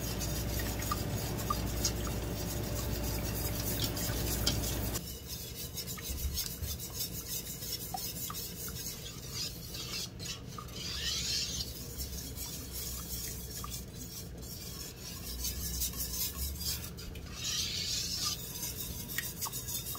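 A utensil stirring and scraping a thin lemon curd mixture of coconut milk and arrowroot starch around a saucepan over medium heat as it starts to thicken. A low steady hum stops about five seconds in, and there are two brief louder scrapes.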